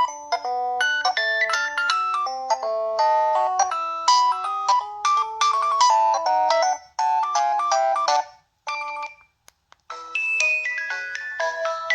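Preloaded ringtones on an LG Revere Black Edition phone: a quick, busy melody of stepped notes plays and stops a little past the middle. After a short pause a different ringtone starts near the end.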